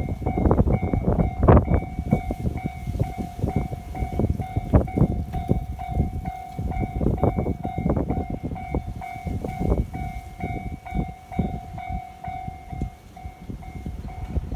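A Japanese level crossing's warning bell sounding a steady tone while a train passes over the crossing, its wheels clattering and knocking irregularly over the rails.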